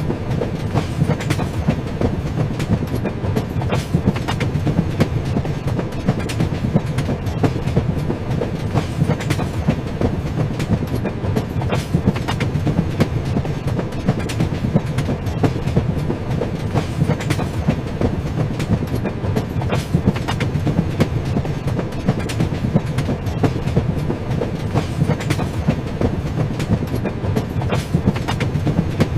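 A train running along the rails: a steady low rumble with frequent clicks and knocks of the wheels on the track.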